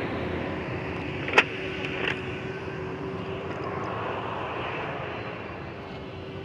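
Bus diesel engine running steadily and slowly fading as the bus pulls away, with a sharp click about a second and a half in.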